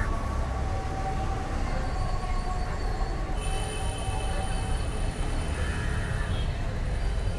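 Steady low rumble of city street traffic, with a high-pitched squeal lasting about three seconds in the middle.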